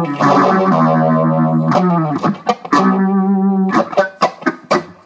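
Guitar music played through effects: held chords for about two seconds, then a run of short, sharp stabbed chords with gaps between them.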